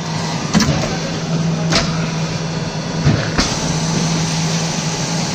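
Automatic fly ash brick press with a 120-ton hydraulic ram running: a steady hum from the hydraulic drive, broken by a few sharp metallic knocks and clanks as the mould lifts off the freshly pressed bricks.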